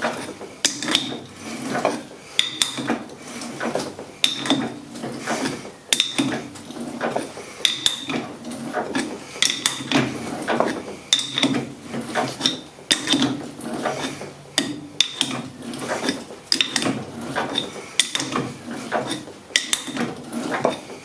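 A hand tap being wound by its tap handle into a hole in stock held in a metal lathe: repeated metallic clicks and clinks from the tap cutting and the handle being worked, in short bursts every second or two.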